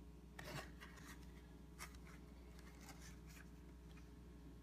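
Faint crinkling and rubbing of a plastic blister pack on its card backing as it is handled and turned in the fingers, in a few short scratchy strokes.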